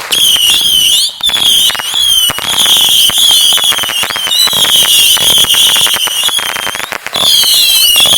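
Consumer fireworks going off: a dense run of crackling pops under several shrill, wavering whistles, briefly dipping about a second in and again about seven seconds in.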